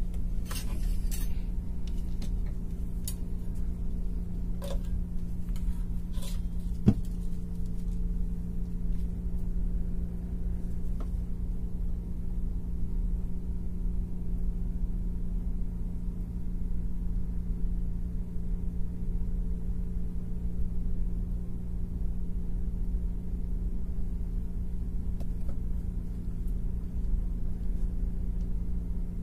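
Small clicks and light metallic taps of hand work on amplifier wiring, bunched in the first seven seconds, with one sharp click about seven seconds in. A steady low hum runs underneath throughout.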